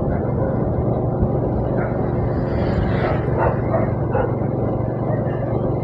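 Steady running noise of a vehicle travelling along a road: an even low engine hum mixed with wind and road noise. A few short, higher sounds break through around the middle.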